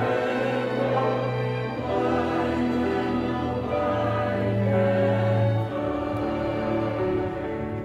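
Youth orchestra and choir performing live: long held chords over a sustained low bass note, easing slightly in loudness near the end.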